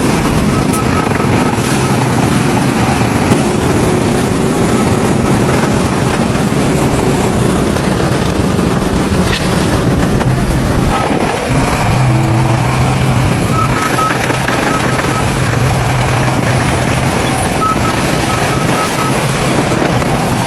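Bulldozer diesel engines running steadily while pushing fill, with a reversing alarm beeping in three short runs of quick beeps.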